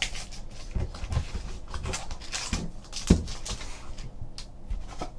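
Hands handling and tearing open a small cardboard trading-card box: scattered cardboard rustles, taps and clicks, with one louder sharp sound about three seconds in.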